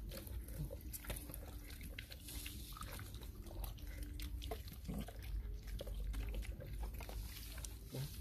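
Several puppies eating wet rice from a plastic dish: chewing and biting heard as many quick, irregular clicks.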